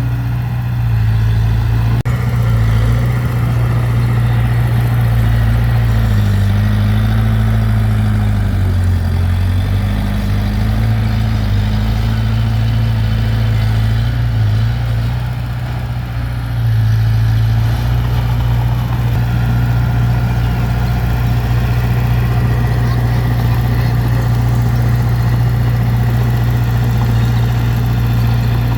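Heavy diesel engine of earthmoving machinery running steadily with a deep hum. Its pitch shifts for a few seconds early on, and it drops briefly in level about halfway through before picking up again.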